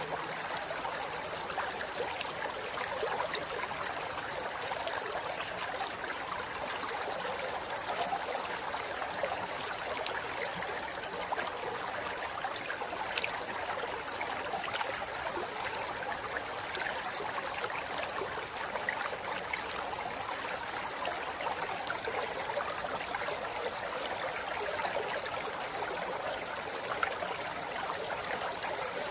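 A shallow river flowing steadily over rocks: an even rush of water with fine splashing and gurgling throughout.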